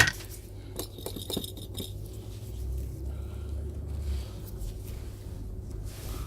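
Small tools clinking and tapping against a hard repair bench, a few short clicks in the first two seconds, over a steady low hum.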